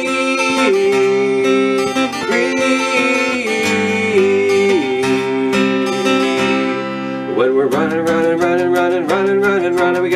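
Acoustic guitar strummed and picked, with a wordless vocal line sliding between notes over it.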